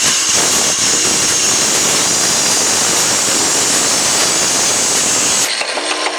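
A power tool cutting into the sheet-metal muffler casing: a steady, harsh cutting noise with a faint high whine, which stops about five and a half seconds in.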